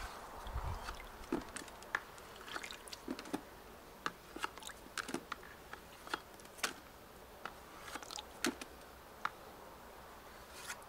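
Metal slotted skimmer working through a bucket of soaking wheat, scooping floating husks and debris off the water: irregular light clicks and small wet splashes and drips.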